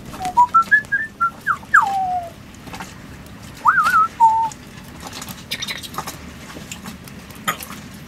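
African grey parrot whistling: a quick run of short notes climbing in pitch, ending in a long downward slide. About two seconds later comes a wavering upward whistle and then a short lower note.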